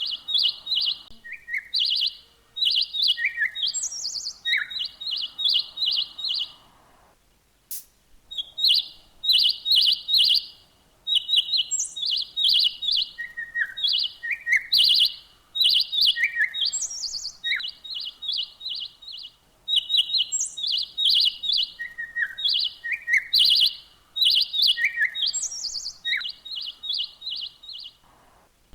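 Birdsong: quick runs of high chirps repeated in phrases, mixed with short down-slurred and higher whistled notes, with a brief pause about seven seconds in.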